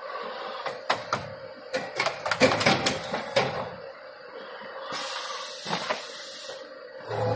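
Automatic busbar riveting machine at work: a quick run of sharp mechanical clicks and knocks between about one and three and a half seconds in, then a short hiss, over a steady machine hum.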